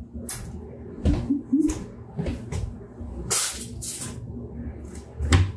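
Kitchen handling noises around a wooden upper cabinet being opened: a string of light knocks and clicks, a short rustle about three and a half seconds in, and a louder thump near the end.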